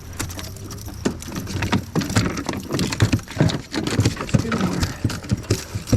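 Quick, irregular knocks and slaps, several a second and busier from about two seconds in, as a hooked bass is brought in and landed in a kayak, over a low steady hum.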